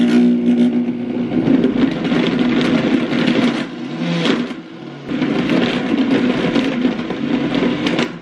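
Vitamix blender motor running, blending a thick smoothie-bowl mix of fruit, dates, greens and a little almond milk. It eases off about four seconds in, picks up again a second later, and cuts off near the end.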